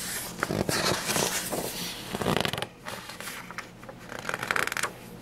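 Paper rustling as the pages of a picture book are turned and handled, coming and going in two main stretches.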